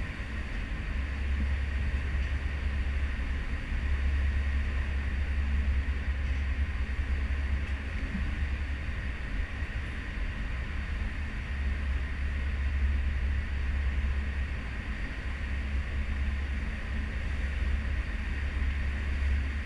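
Serenade of the Seas under way at sea, heard from an aft stern balcony: a steady deep rumble that swells and eases every few seconds, with a constant rushing hiss above it.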